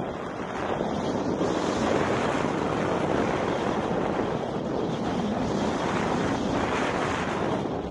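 Airflow rushing over a camera's microphone while paragliding: a steady wind noise with no voice, growing louder about a second in.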